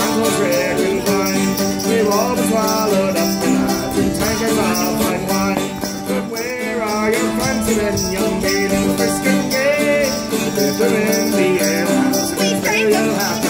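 Live acoustic folk music: two plucked string instruments strummed in a steady rhythm, with a man singing over them.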